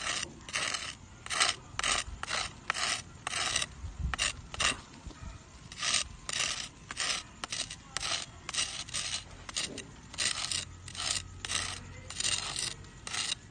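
Rhythmic rasping scrapes across an ash-covered surface, about three short strokes a second, with a brief pause a little before the middle.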